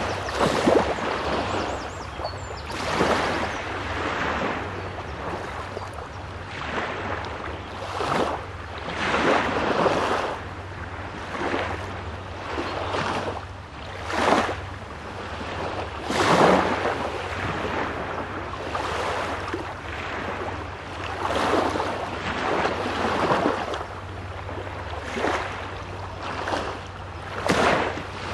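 Small Baltic Sea waves breaking and washing onto the shore, one rushing wash every second or two, over a steady low rumble.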